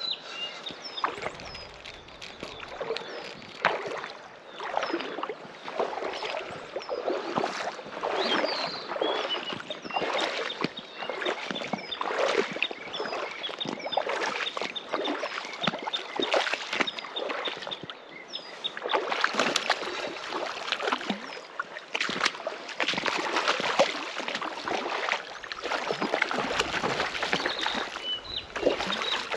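Oars or a paddle dipping and splashing as a small boat is rowed, a stroke every second or two, with faint short high chirps over the water noise.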